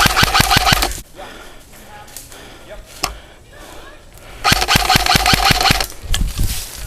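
Airsoft gun firing on full auto: two bursts of rapid shots, about ten a second, the first lasting about a second at the start and the second coming about four and a half seconds in.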